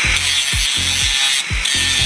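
Background music with a steady beat, about two beats a second, over a steady hiss of a power tool working on a part; the hiss breaks off briefly around the middle.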